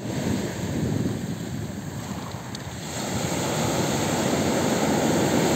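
Sea surf breaking and washing up over a pebble beach, a steady rush that grows louder in the second half as a wave runs in.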